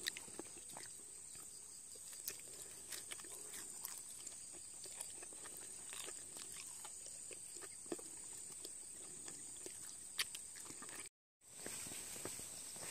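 Faint, steady high-pitched insect trill with scattered light clicks and taps from a Jindo puppy nibbling treats from a hand; the sound drops out briefly near the end.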